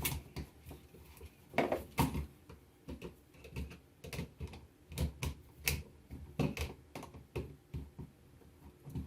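Irregular light clicks and taps of a screwdriver and wire against a new plastic wall outlet as the wires are fastened to its terminals.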